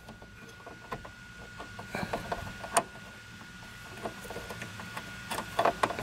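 Soft rubbing and a few small plastic clicks as the Camaro's trunk-light housing, with its new LED bulb and wiring harness, is pushed back into the trunk trim. A faint steady high tone runs underneath.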